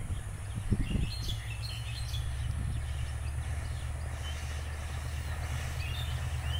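Diesel locomotive of an approaching passenger train heard from a distance: a steady low engine drone that grows slightly louder. Birds chirp briefly a few times, and a couple of low thumps come in the first second.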